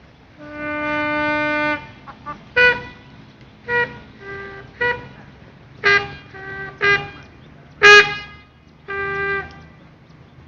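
A military signal call played on a bugle: one long held note, then a run of short notes on a few pitches, the loudest and brightest about eight seconds in, closing on a short held note.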